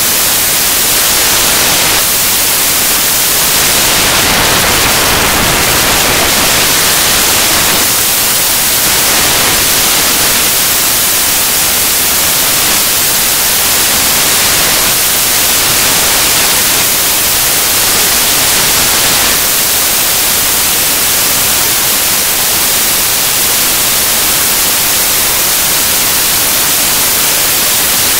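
Loud, steady hiss of static that masks everything else.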